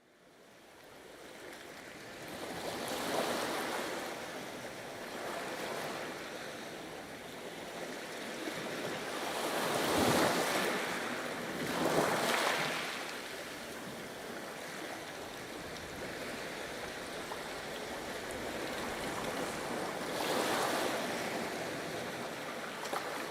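Sea waves washing onto a shore, the surf swelling and breaking in surges every few seconds; the sound fades in at the start.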